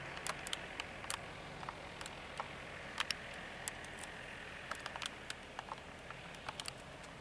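Piper L-21B's flat-four engine idling at a distance as the light plane taxis, a steady low drone. Many short, sharp clicks come at irregular moments over it.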